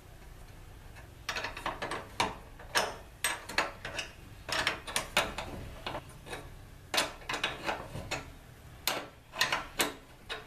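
Ratchet wrench clicking in short runs as a nut is tightened on a carriage bolt holding the axle bracket to a wooden wheelbarrow handle. The clicking starts about a second in and comes in bursts with brief pauses between strokes.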